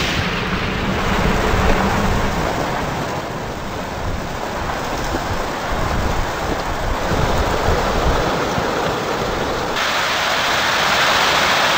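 Heavy rain pouring down, a dense steady hiss with low rumbling in the first couple of seconds; the hiss grows brighter and heavier about ten seconds in.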